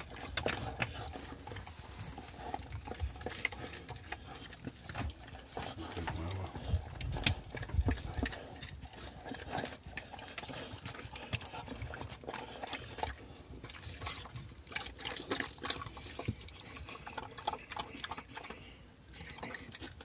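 Brittany mother dog licking and nuzzling her newborn puppy clean just after the birth: irregular wet licking and snuffling sounds.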